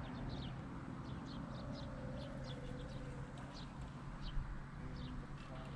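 Small birds chirping faintly, short high calls repeated irregularly a few times a second, over a steady low outdoor background noise.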